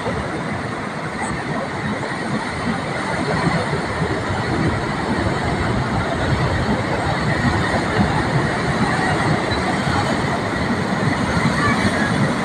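Sea waves breaking on the shore: a steady, continuous roar of surf with no distinct separate crashes.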